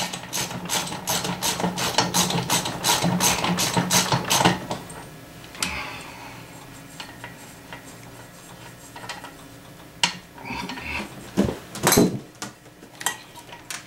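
Ratchet wrench clicking rapidly and evenly, about five clicks a second, as it spins the propeller nut off an outboard's propeller shaft; the clicking stops after about four and a half seconds. A few scattered metal knocks follow as the prop hardware is handled.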